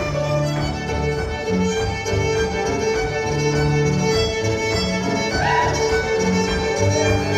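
Two fiddles playing a lively Cape Breton–style traditional tune together, with keyboard accompaniment giving a changing bass line beneath.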